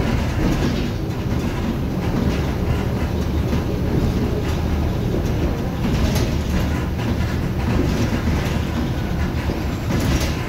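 Volvo B7R LE city bus with a Marcopolo Viale body driving, its diesel engine giving a steady low rumble under a continuous clatter of small rattles.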